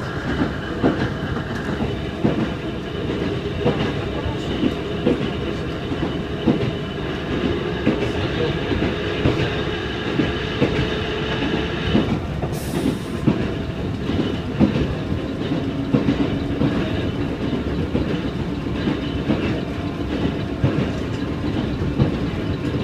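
Ohmi Railway 220-series electric car with nose-suspended (tsurikake) traction motors running at speed, heard from inside the car: a steady motor and gear hum under the clickety-clack of the wheels over rail joints. The hum sits lower in the second half, and there is a brief hiss about halfway through.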